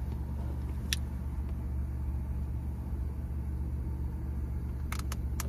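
Steady low rumble of a car's idling engine heard inside the cabin, with a light click about a second in and a few quick clicks near the end.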